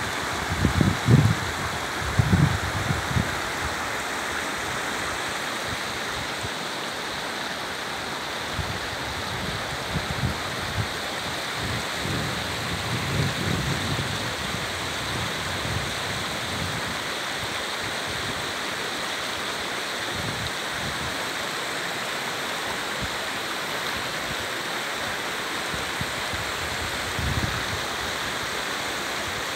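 Shallow mountain stream rushing over stones, a steady rush of water. A few low rumbles come and go, strongest in the first few seconds.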